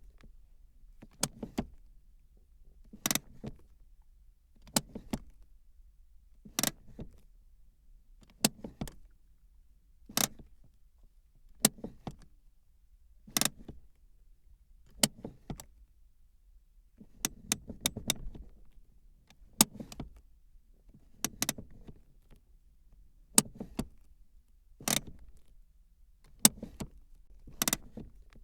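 Car handbrake lever being pulled up and let down again and again, its ratchet clicking in short sharp bursts about every one and a half to two seconds.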